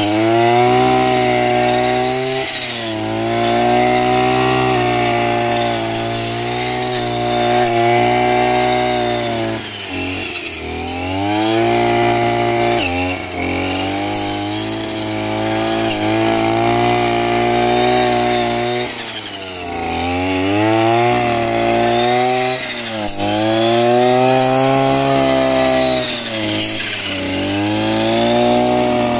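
Kraftech brush cutter fitted with a 40-tooth circular saw blade, its engine running at high revs while the blade cuts. The pitch sags and climbs back about seven times as the engine loads up with each cut and recovers.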